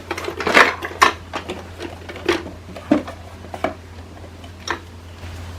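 Hard plastic knocks and clicks, about six separate ones, as the Roomba's charging base is handled and set in place.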